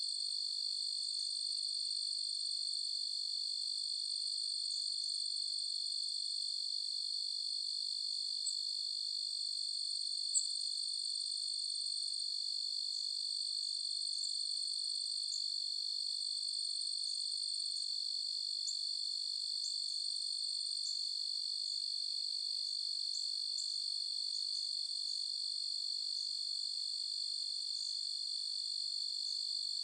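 A night chorus of crickets trilling steadily at a high pitch, with short high chirps scattered over it and one brief click about ten seconds in.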